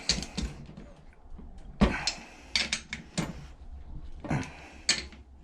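A torque wrench on the cylinder head bolts of a Predator 212 engine, re-checking them at 17 ft-lb: a series of sharp, irregular metal clicks and clinks, the loudest a little under two seconds in.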